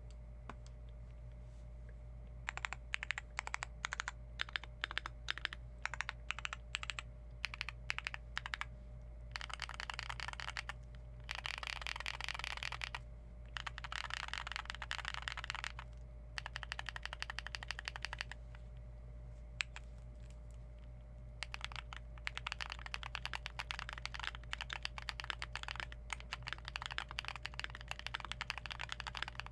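Keystrokes on a gasket-mounted aluminium Keychron Q1 mechanical keyboard with lubed Zaku/NK Cream frankenswitches and ABS doubleshot keycaps. At first there are single, separate key presses, then short stretches of rapid typing. Steady fast typing fills the last third.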